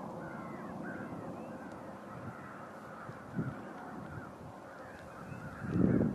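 A flock of birds calling, many short overlapping calls at once, over a low background rumble that swells louder near the end.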